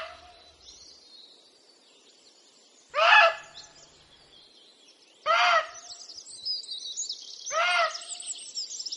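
Female muntjac deer giving alarm barks: three short, loud barks about two and a half seconds apart. A small bird sings high-pitched chirps in the background from about two-thirds of the way in.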